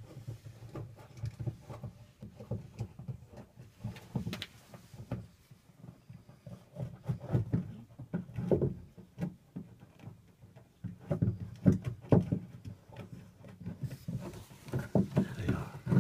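Irregular rustling, bumps and knocks of a phone being handled and shifted about as it films, brushing against hanging cords and other stored things.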